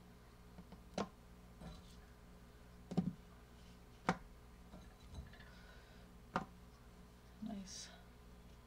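Potato wedges being set down and shifted by hand on a silicone-mat-lined metal sheet pan: a few faint, sharp taps and soft knocks at irregular intervals, the loudest about three seconds in, with a light rustle near the end.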